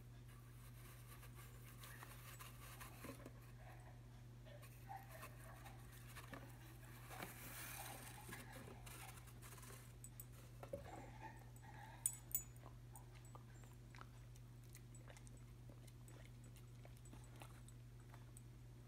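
Faint sounds of a dog working a cardboard paper towel tube on carpet, nosing it about and chewing: soft rustles and small crunches, with two sharp clicks close together about twelve seconds in. A steady low hum runs underneath.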